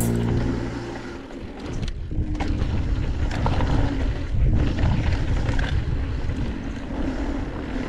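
Wind rushing over the camera's microphone and mountain bike tyres rolling on a dirt trail, with a few short knocks from the bike. Background music fades out about a second in.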